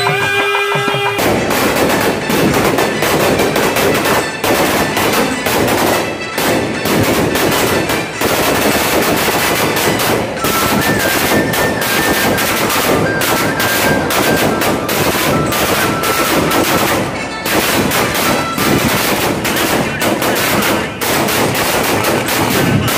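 Procession drum music briefly, then about a second in a long string of firecrackers starts going off in a rapid, irregular run of cracking bangs that continues without a break.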